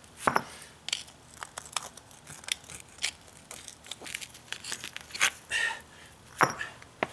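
Brick pavers clicking and scraping as one is pried loose from its bed with a hand tool and others are set down on a stack, with gritty scrapes of sand. A sharper knock comes about six and a half seconds in.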